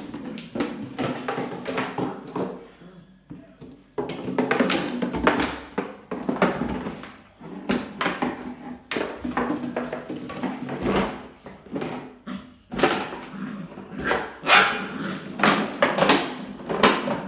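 A puppy barking while it plays with an empty plastic bottle. The bottle knocks and crackles repeatedly as it is pushed over a tile floor.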